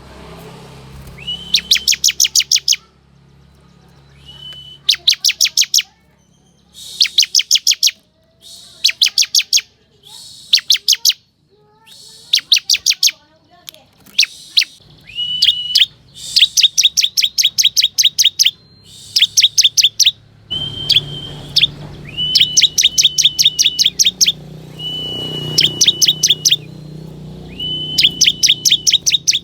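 Bar-winged prinia (ciblek kristal) singing: phrase after phrase, one every second or two, each a fast dry series of sharp high notes, some led in by a short held whistle. A faint low hum lies underneath.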